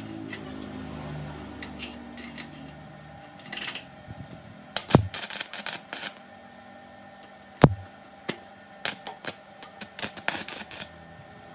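Metal parts and hand tools being handled on a workbench: a series of sharp clicks and clinks, with two louder knocks about five and seven and a half seconds in and a quick cluster of clicks near the end, over a low hum at the start.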